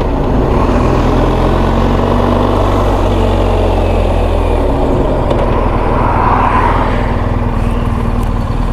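Motorcycle engine running at road speed with heavy wind rush over the microphone, heard while riding. The engine note shifts slightly about four seconds in.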